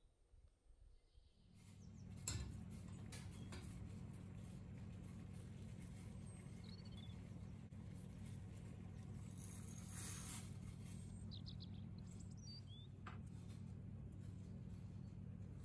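A steady low electrical hum that starts about a second and a half in, with a few faint clicks and a short hiss about ten seconds in.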